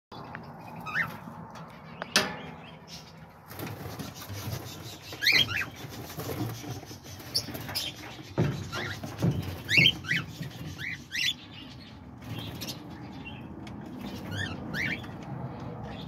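Small pet parrots, cockatiels among them, giving short chirping calls scattered through, each rising and falling quickly in pitch. A few sharp knocks, the loudest about two seconds in.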